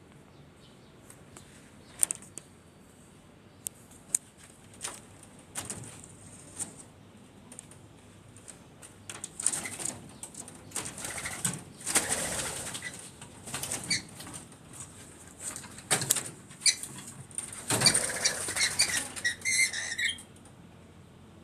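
Red-and-blue lory (Eos histrio) flapping its wings in bursts, with scattered sharp clicks and a short run of high chirping notes near the end.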